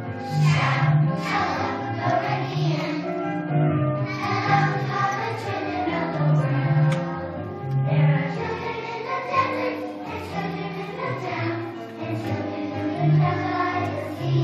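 A group of kindergarten children singing together on stage as a choir, over a musical accompaniment with a steady bass line.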